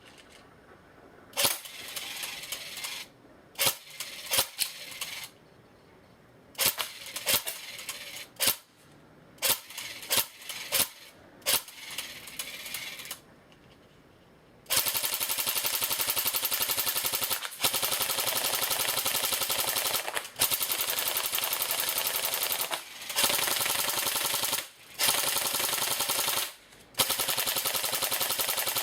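Cyma CM050A AK-47 airsoft electric gun firing: short bursts and single shots with pauses at first, then from about halfway long full-auto strings of rapid mechanical clacking, broken by a few brief stops.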